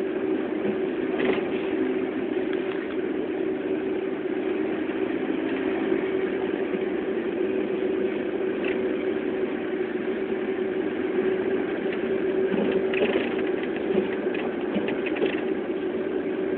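Steady running noise of a moving vehicle heard from inside, with a constant unchanging hum and a few faint rattles near the end.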